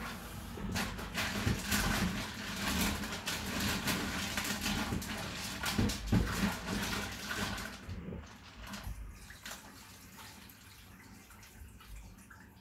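Tap water running while blue mussels are rinsed, their shells clicking and clattering against each other. The water stops about eight seconds in, leaving a few light clicks of shells being handled.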